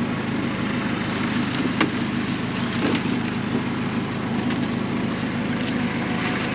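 Engine running steadily, with a few sharp knocks of potatoes being tossed onto a wagon.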